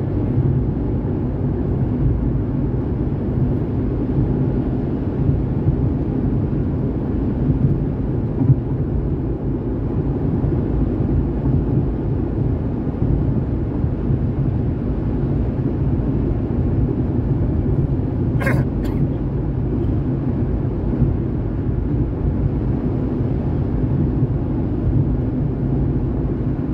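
Steady low rumble of a car on the move, heard from inside the cabin, with one short sharp hiccup about two-thirds of the way through.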